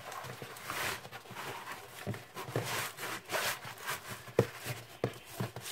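Rolled diamond painting canvas being rerolled the other way by hand on a wooden desk: repeated rubbing and swishing of the canvas against the wood, with a few light knocks.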